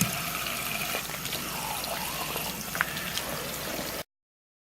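Tap water running steadily into a sink while a bar of handmade soap is lathered in wet hands, with a small click a little under three seconds in. The sound cuts off abruptly about four seconds in.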